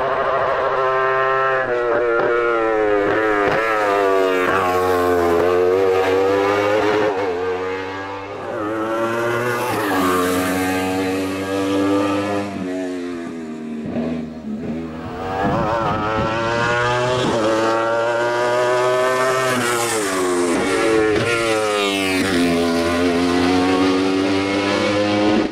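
Wolf Thunder sports prototype's racing engine revving hard through the gears on a hill climb. Its pitch climbs again and again and drops back at each upshift. It fades away twice in the middle, then comes back close and revving high again.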